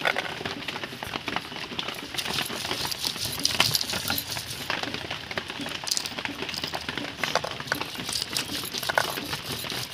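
Green peas being shelled by hand: pods split open and peas drop, making irregular small clicks and ticks.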